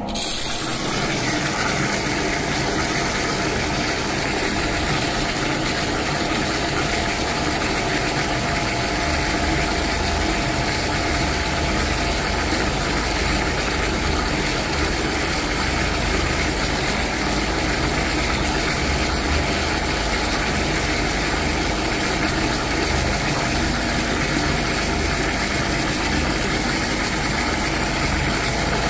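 DAB electric water pump, freshly primed, kicking in suddenly and then running steadily with an even, unchanging hum and rush.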